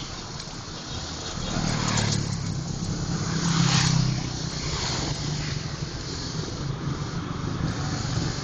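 A motor vehicle's engine passing close on the street, building up about a second and a half in and loudest around three to four seconds in, then easing to a steady traffic hum.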